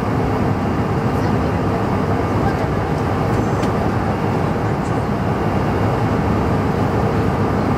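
Steady cabin roar of a Bombardier CRJ-700 in flight, heard from inside the cabin: its rear-mounted General Electric CF34 turbofans and the airflow over the fuselage, with a low, even drone underneath.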